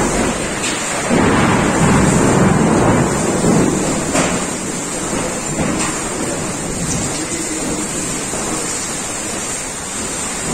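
Heavy wind-driven rain pouring steadily, with a louder low rumble that swells between about one and four seconds in.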